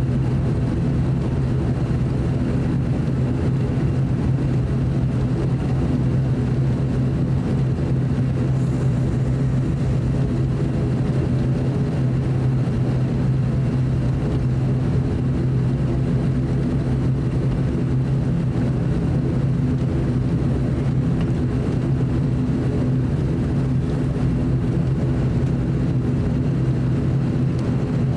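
ATR 42-600 turboprop airliner heard from inside the cabin while taxiing: the engines run steadily at taxi power, with the propellers' low, even drone.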